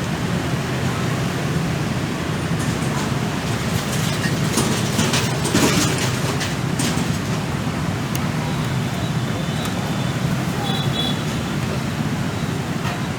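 Steady street traffic noise, with a few clinks and clatters about the middle.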